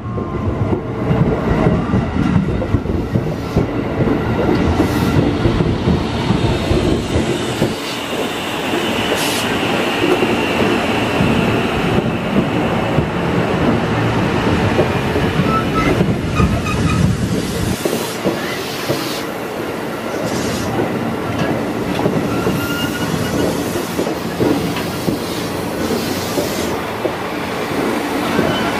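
Bogies of a KRL commuter electric train rolling over a railway switch: a steady rumble of steel wheels on rail, with scattered sharp clanks as the wheels cross the points and joints and a few brief wheel squeals.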